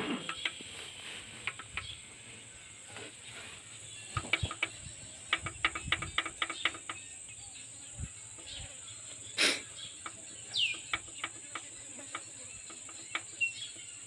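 Light metallic clicks and taps from the rocker arms of a Nissan FE diesel engine being rocked by hand to feel the valve clearance. The clicks come thickest about a third of the way in and again past the middle. Under them runs a steady, high insect drone.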